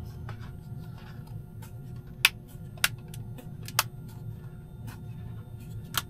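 Groceries and containers being handled: a few sharp clicks and knocks, the loudest about two seconds in and the last near the end, over a steady low hum.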